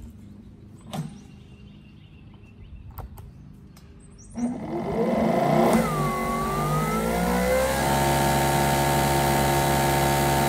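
Greenworks Pro GPW3000 electric pressure washer's brushless motor and pump starting up about four seconds in, after a couple of clicks. The motor rises in pitch as pressure builds, then runs steadily with a hiss of spray through the 25-degree nozzle.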